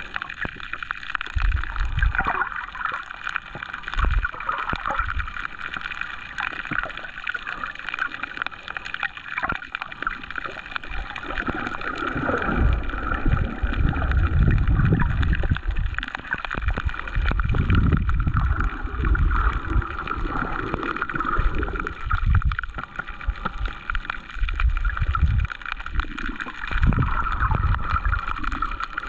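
Underwater sound of shallow sea water moving around a submerged GoPro camera: irregular low surges and gurgling, busier in the second half, with a faint steady high hum.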